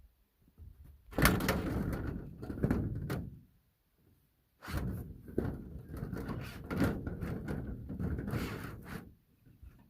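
Greenhouse-building work noise, rattling, scraping and knocking of polycarbonate panels being handled and fitted. It comes in two stretches, one about two seconds long and another about four seconds long, with quiet between them.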